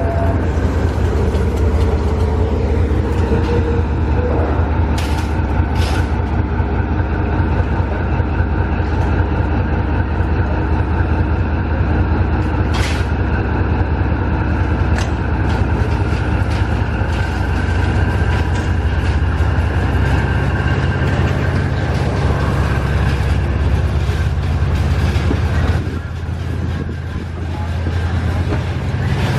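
A D19E diesel-electric locomotive's engine running steadily with a deep, even hum. A few brief sharp sounds cut in about five, six and thirteen seconds in.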